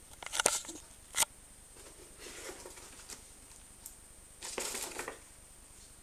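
Cardboard shoebox and a folded paper instruction leaflet being handled: a few sharp clicks and taps in the first second or so, then paper rustling, loudest from about four and a half to five seconds in.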